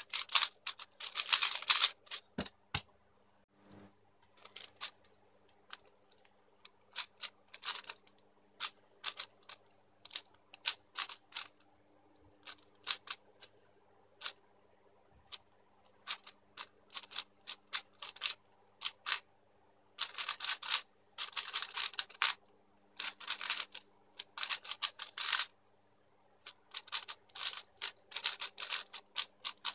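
YuXin Blue 4x4 speedcube being turned fast by hand: quick runs of plastic clicking and clacking as the layers snap round, broken by brief pauses between sequences. A faint steady hum sits underneath.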